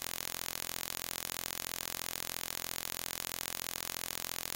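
Steady static-like hiss with a fast, even flutter.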